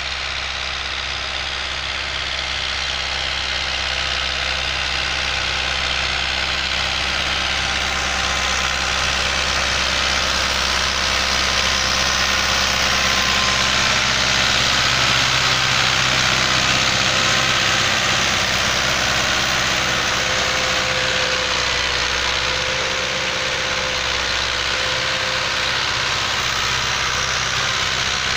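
Fiat 640 tractor's diesel engine running steadily as it pulls a cultivator through the soil. It grows louder up to about halfway through, as the tractor comes closest, then eases slightly.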